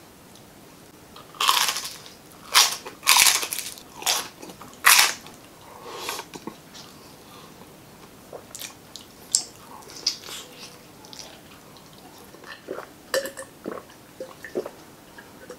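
Loud crunching bites into crispy fried chicken skin, about five in quick succession early on, followed by softer chewing. Near the end, a run of short gulps while drinking from a glass jar.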